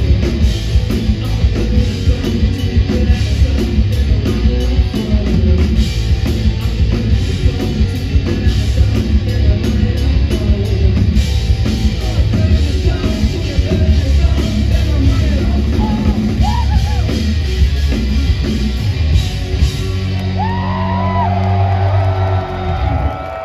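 Live rock duo playing loudly: heavily overdriven bass guitar and a pounding drum kit with sung vocals. About 20 seconds in, the drums stop on a final held chord while the crowd whoops, and the music cuts off suddenly near the end.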